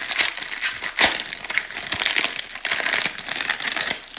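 Foil baseball card pack wrappers crinkling and crackling as packs are torn open and handled, with a couple of sharper snaps about one and two seconds in. The crinkling stops near the end.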